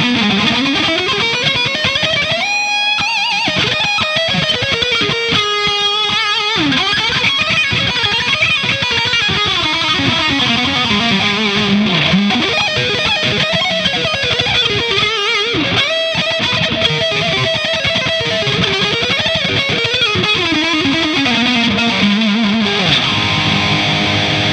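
Distorted electric guitar playing a lead line: sustained, bending notes with vibrato and quick runs of notes.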